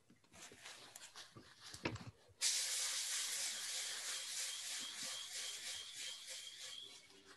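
Faint crackling and rustling, then a sudden hiss with a faint high whistle in it, which fades slowly over about five seconds, heard through a video-call microphone.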